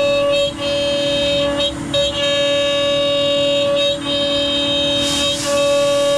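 CNC router spindle cutting ash wood, a loud steady whine that dips briefly a few times as the bit loads up, over a vacuum cleaner running to pick up the chips.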